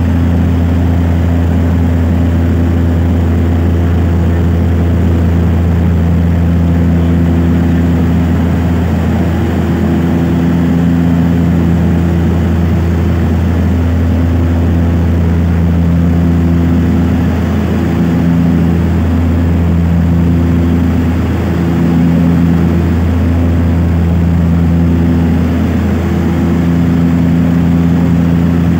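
Propeller aircraft in flight, heard from inside the cabin: a loud, steady low drone with several humming tones above it that fade in and out every few seconds.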